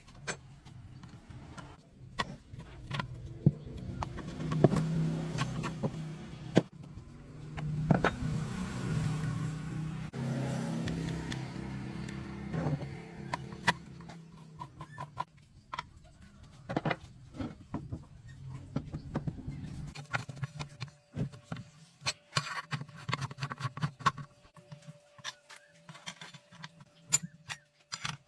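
A small motor hums steadily, with many sharp clicks and knocks over it; a thin steady whine joins about two-thirds of the way in.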